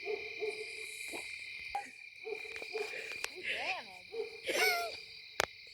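A faint voice making two short hooting calls that rise and fall in pitch, over a steady high-pitched whine, with one sharp click near the end.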